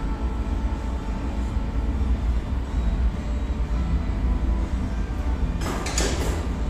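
Steady low roar of a glassworks' gas-fired furnace and bench burner, with a short burst of hiss about five and a half seconds in.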